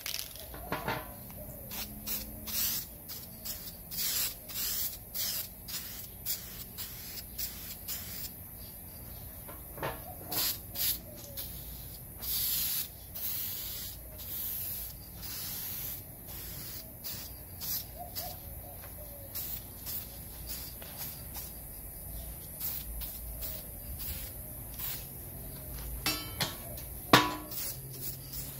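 Aerosol spray paint can spraying a light first coat onto a steel grill, in many short hissing bursts with a few longer passes. A single sharp knock near the end.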